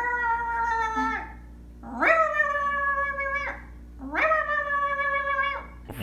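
A woman imitating a cat with her voice: three long meows, each rising sharply at the start, then held and sinking slightly, about two seconds apart.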